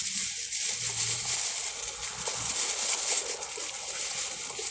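Plastic bag and paper food wrapper crinkling and rustling as they are handled close to the microphone.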